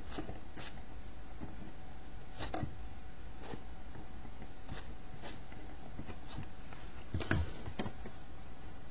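Scattered light clicks and taps of desoldering work on a circuit board, a rubber desoldering bulb and soldering iron working the solder joints, over a low steady hum. A louder cluster of knocks about seven seconds in as the board is handled.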